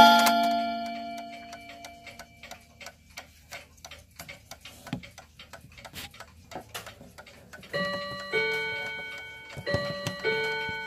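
AEON 31-day tambour mantle clock with a Chinese-made model 0304 movement. A hammer strikes a gong rod at the start and the note rings and fades, the movement then ticks steadily, and from about three-quarters of the way in the hammers strike two rods of different pitch, high then low, twice over.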